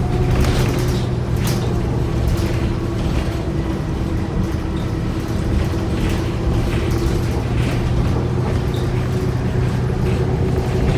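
Inside a New Flyer D40LF transit bus under way: a steady drivetrain drone with a steady whine above it, and scattered rattles and creaks from the body. The bus's transmission is bad.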